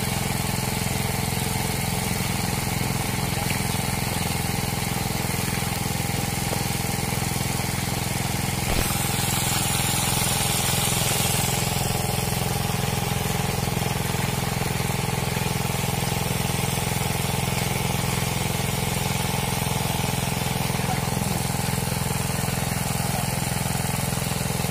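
A pump motor running with a steady, unbroken hum. About nine seconds in there is a single click, and a hiss rises over the hum for a few seconds.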